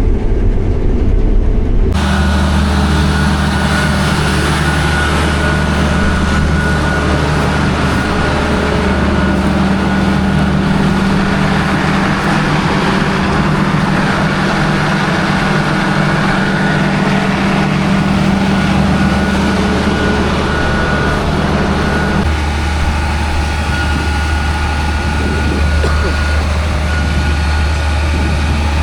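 Combine harvester running under load while cutting wheat, a steady engine and machinery drone with a thin high whine over it. The sound changes abruptly about two seconds in and shifts again a little past the two-thirds mark.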